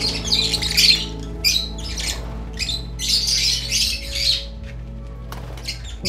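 African lovebirds squawking and chirping shrilly in irregular bursts, over background music with sustained notes.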